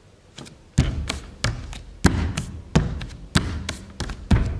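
Bare feet stamping on a stage floor in a steady rhythm, about two to three heavy thuds a second, starting about a second in.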